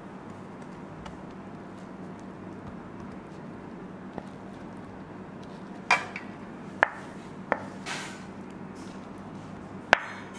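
A spoon clicking and tapping against a plate as mushroom and tomato filling is spooned into a tart shell: a light tick about four seconds in, several sharp clinks between six and eight seconds, and one more near the end, over a faint steady hum.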